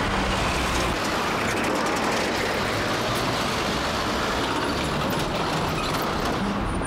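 Small flatbed truck driving across a railway level crossing, its engine and tyres heard as a steady traffic noise.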